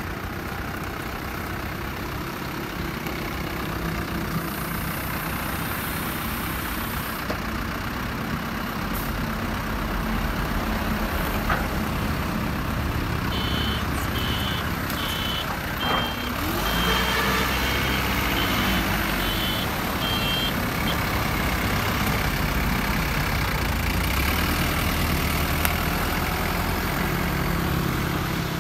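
Toyota 5FD25 forklift's 1Z diesel engine running steadily, picking up revs about halfway through. Its reversing alarm beeps repeatedly for several seconds in the middle, the sign that the forklift is backing up.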